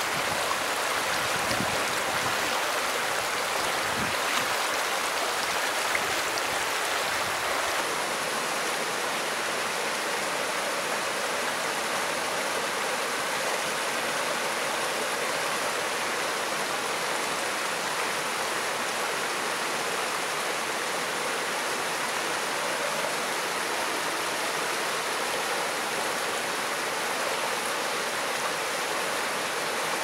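Creek water running steadily over a shallow, rocky bed, with a couple of soft low bumps near the start. At about 8 seconds in it gives way to an even rush of water spilling over a small weir into a foaming pool.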